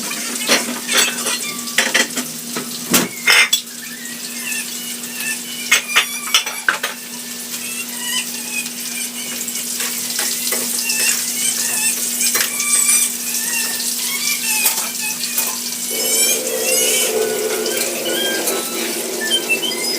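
Dishes and cutlery clinking and knocking at a kitchen sink, thickest in the first several seconds, over water running from a tap and a steady low hum.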